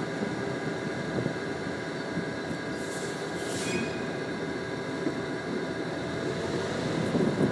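Locomotive moving along the track, heard from aboard: a steady rumble of wheels on rail and running gear, with a brief hiss about three seconds in.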